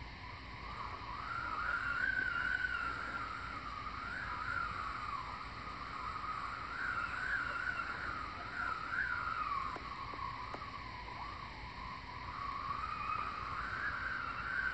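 Strong wind whistling across a kite-mounted camera: a wavering whistle that drifts up and down in pitch over a steady rush of wind.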